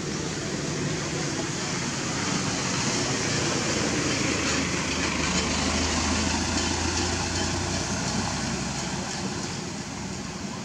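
A road vehicle passing: a steady rushing noise that swells through the middle, with a low engine hum, and eases off near the end.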